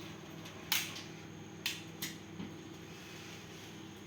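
Microwave oven running with a steady hum while shrimp heating inside pop sharply three times, the loudest about a second in: the 'explosive sound' of shrimp bursting as they cook.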